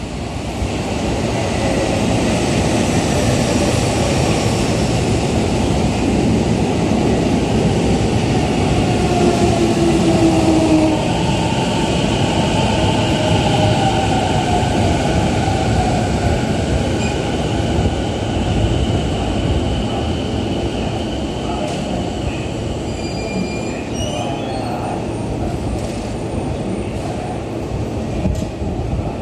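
Toei 10-300 series electric subway train arriving and braking to a stop, its wheels and motors running loudly past. A whine falls in pitch as it slows, and high, steady brake and wheel squeal follows as it draws to a halt.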